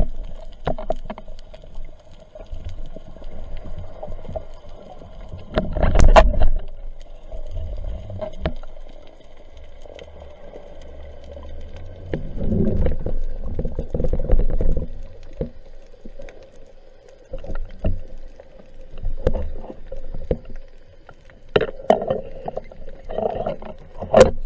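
Muffled underwater sound from a camera on a speargun: irregular low rumbling surges of moving water with occasional sharp clicks and knocks, the loudest surge about six seconds in and a sharp click near the end, over a faint steady hum.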